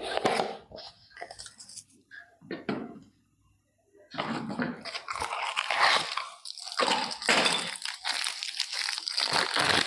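Dry crinkling and crunching of something being handled, in short bursts at first, then a brief pause about three seconds in, then a continuous stretch of crinkling.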